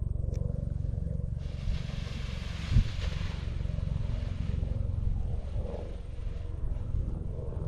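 Wind buffeting the microphone in a steady low rumble, with a hissing gust from about a second and a half in to about three and a half seconds, and one sharp thump near three seconds.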